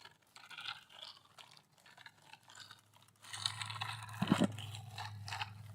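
Mud being scraped and scrubbed off a toy excavator: short crunching, scratching sounds. A low steady hum comes in a little past halfway.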